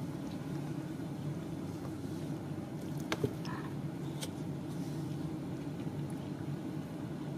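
Steady low hum, with a few light clicks about three seconds in.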